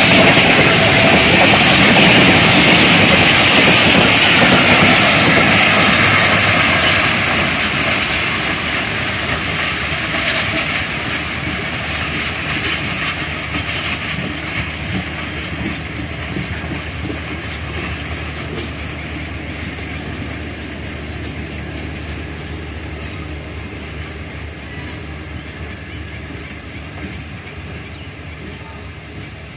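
Passenger train coaches rolling past with wheels clattering on the rails, loud and close at first, then fading steadily from about seven seconds in as the train moves away.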